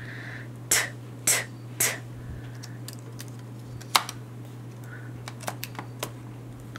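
Magnetic letter tiles clicking against a magnetic whiteboard as they are pulled off and set down. There are three clicks with a short scrape in the first two seconds, a sharp click about four seconds in, then a few light ticks, all over a steady low hum.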